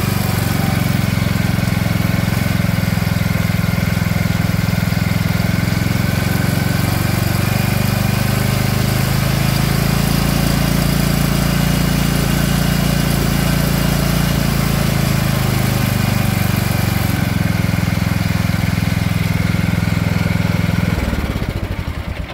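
Cub Cadet XT1 lawn tractor's 547cc MTD single-cylinder engine running steadily after starting, now that the loose wires to its anti-backfire fuel solenoid are reseated. Its speed shifts up and back down midway as the Intellipower dial is turned. It is shut off about 21 seconds in and runs down.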